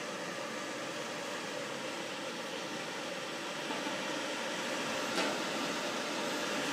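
Moving-head stage light running in automatic mode: steady cooling-fan noise with the whir of its pan and tilt motors. A single click about five seconds in.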